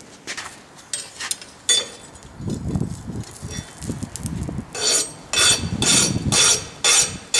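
A file scraped in short strokes, about two a second, across a freshly oil-quenched coil-spring steel awl held in tongs, after a few clicks and handling sounds. The file is not biting, the sign that the quench has hardened the steel.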